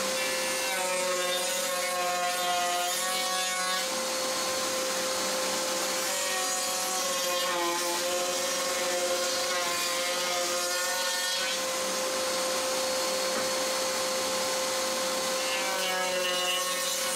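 A power drill runs in three spells of a few seconds each, its whine sagging in pitch under load in the middle spell, over a steady hum.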